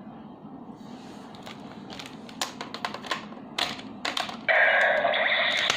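Sharp plastic clicks from a DX Gaburevolver toy gun being handled as a Zyudenchi piece is loaded. About four and a half seconds in, the toy's loud electronic sound effect starts.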